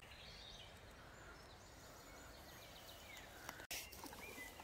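Near silence: faint woodland ambience with a few faint bird calls, and the sound cutting out for an instant about three and a half seconds in.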